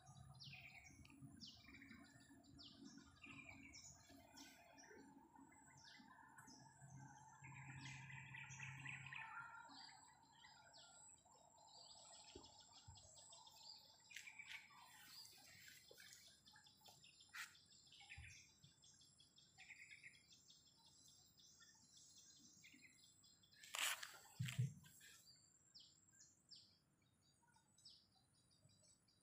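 Faint birdsong: many short, high chirps from several birds, scattered throughout. A faint low hum runs through the first ten seconds, and two sharp knocks come near the end.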